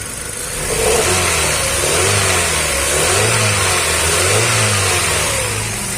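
Hyundai i20's four-cylinder petrol engine revved up and down several times from idle, running smoothly with no misfire after a shorted ignition coil was replaced.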